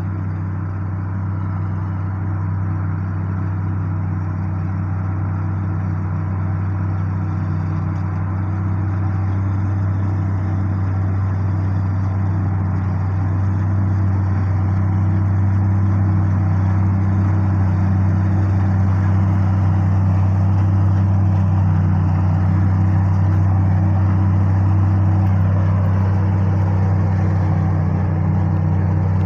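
Combine harvester's engine running steadily at an even pitch, a deep hum that slowly grows louder.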